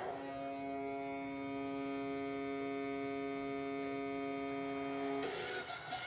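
Goal horn sounding one steady blast about five seconds long, then cutting off sharply.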